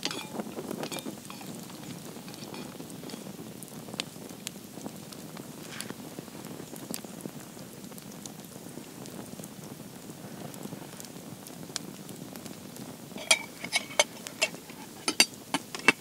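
Campfire burning under a hanging pot, a steady low rushing with scattered small crackles. Near the end comes a quick run of sharp metallic clinks.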